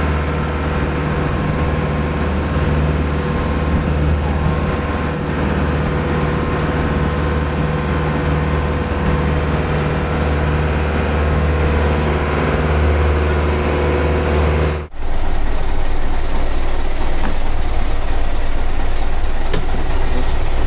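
Motorboat under way: its engine drones steadily at cruising speed under the rush of water and wind along the hull. About fifteen seconds in, the sound breaks off and gives way to a louder, even rushing noise without the engine's hum, with a few clicks.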